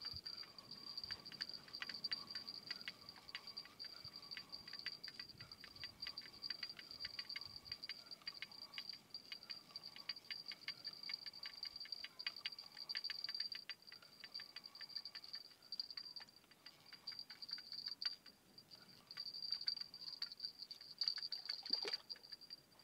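Spinning reel being cranked while reeling in a hooked fish: rapid, uneven ticking from the reel, with a steady high-pitched tone behind it.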